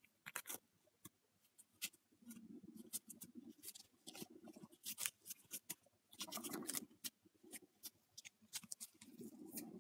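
Faint handling noise from a 6-inch action figure dressed in a cloth robe. Soft rustles of the fabric robe being rubbed come in several short spells, with many small sharp clicks and taps from the plastic figure and fingers scattered among them.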